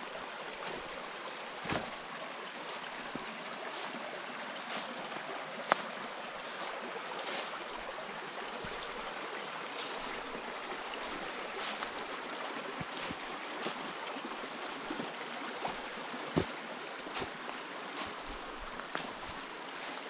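Footsteps along a forest trail, a short step about once a second, over a steady rushing background noise.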